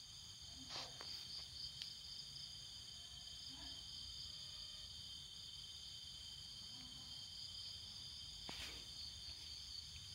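Crickets trilling steadily and faintly, with a couple of brief faint knocks.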